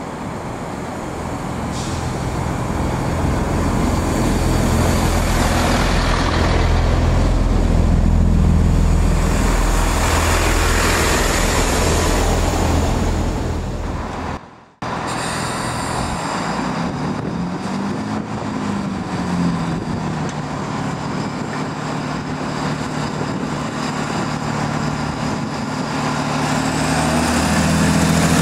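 Diesel engines and wheels of a Great Western Railway Turbo diesel multiple unit (Class 165/166) drawing into the platform, growing louder. After a brief break, a unit's engines run steadily, then rise in pitch with a climbing whine near the end as the train pulls away.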